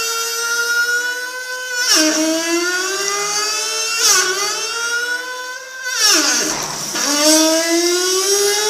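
A faucet's plumbing whining loudly, a singing tone that climbs slowly in pitch and then drops sharply, three times, then climbs again, like a Formula 1 engine changing gear.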